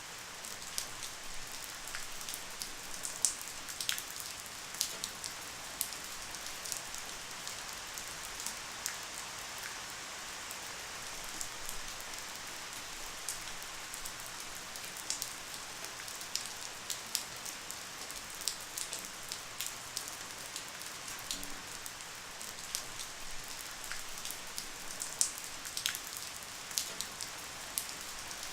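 Light, steady rain: a soft even hiss with many individual drops ticking sharply on a surface.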